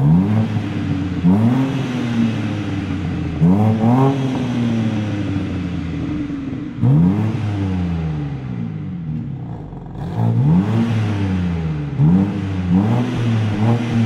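BMW M3 Competition Touring's 3.0-litre twin-turbo straight-six firing up with a brief flare of revs, then idling and being blipped about six times, each rev rising quickly and falling back to idle. This is a stationary exhaust sound check heard from behind the car.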